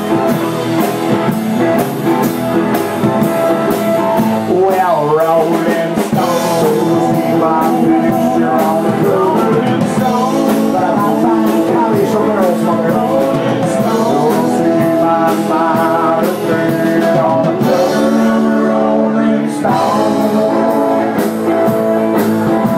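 Live rock band playing a loud instrumental passage, drums keeping a steady beat under sustained chords and lead lines that bend in pitch.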